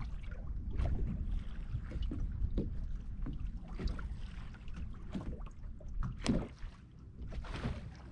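Wind buffeting the microphone as a low, gusty rumble, with small waves lapping and slapping irregularly against a fibreglass bass boat's hull.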